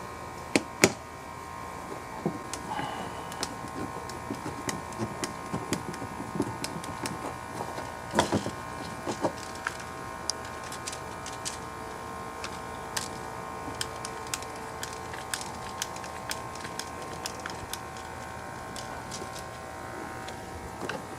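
Scattered clicks, taps and knocks of plastic and metal parts as a chainsaw's recoil starter pulley and spring are worked on by hand, with two sharp clicks about a second in and a louder knock partway through, over a steady background hum.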